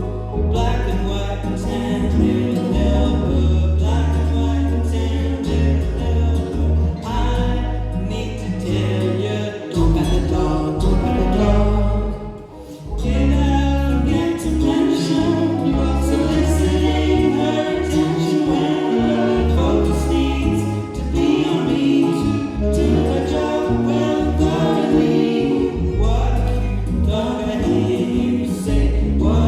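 Live band playing an acoustic song with lead and harmony vocals over a bass line that moves from note to note.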